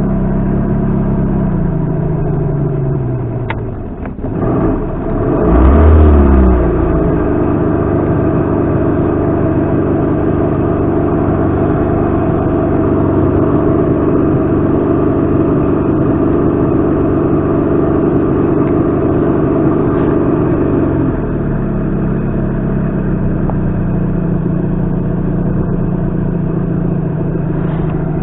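Boat outboard motor being throttled back, then opened up about five seconds in, its pitch climbing quickly before it settles into a steady high run. About twenty seconds in it eases back to a lower steady pitch.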